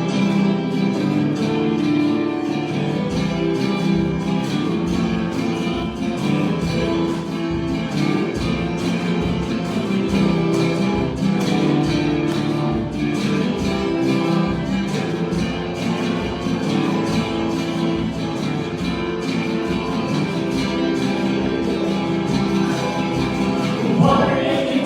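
Instrumental music led by guitar, with held notes over a steady beat; a singing voice comes in right at the end.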